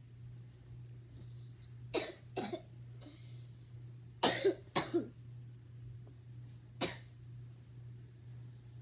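A person coughing: two quick pairs of coughs and then a single cough, over a steady low hum.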